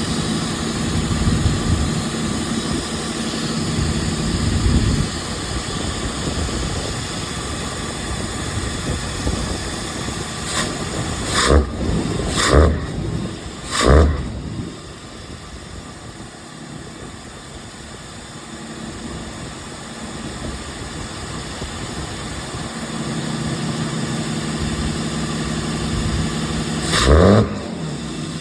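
Cummins 6.7 diesel engine, fitted with a PAC exhaust brake and a twin-turbo kit, running steadily. It gives three short blips about halfway through and one rising rev near the end, run to check the new exhaust work for leaks.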